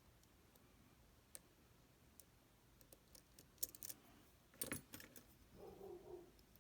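Small metallic clicks and rattles from lock-picking tools working in a Tesa TK100 lock cylinder: a few scattered ticks, then a cluster of louder clicks and rattling a little past halfway, followed by a brief scrape.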